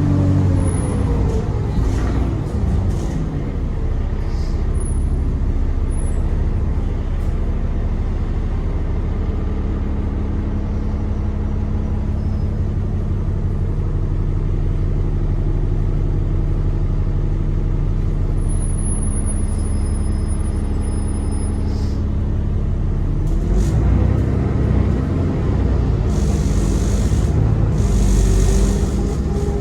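Alexander Dennis Enviro400 double-decker bus's diesel engine heard from on board: its pitch falls as the bus slows, it holds a steady note for a long stretch, and it climbs again near the end as the bus pulls away. A brief high whistle sounds about two-thirds of the way through.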